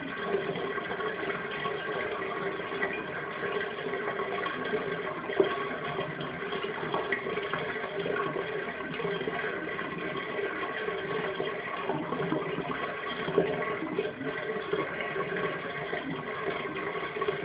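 Bathtub water running out through the drain: a steady rush of water with two brief louder pops, about five and thirteen seconds in.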